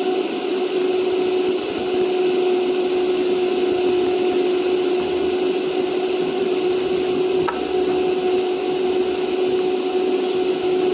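Stick-welding arc crackling and hissing steadily, over a steady hum, with one short click about seven and a half seconds in.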